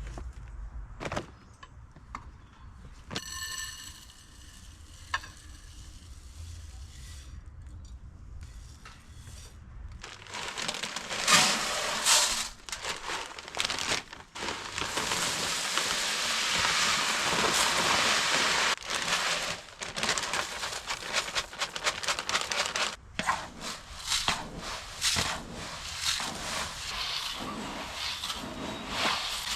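Wild bird seed and sunflower seeds pouring from a bag into bird feeders: a dry rattling hiss in uneven spurts that starts about ten seconds in. Before it come a few scattered clicks and some bag crinkling.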